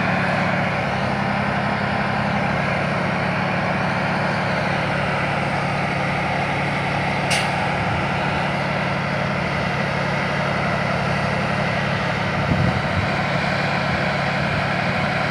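Boom lift crane's engine running steadily as the heavy vehicle is manoeuvred, with a short sharp click about seven seconds in.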